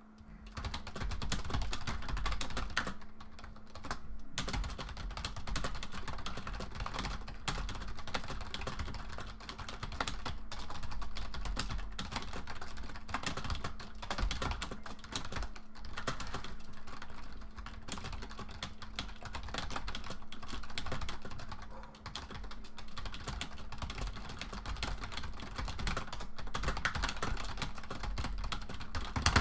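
Fast, continuous typing on a keyboard: a rapid patter of key clicks with a couple of brief lulls.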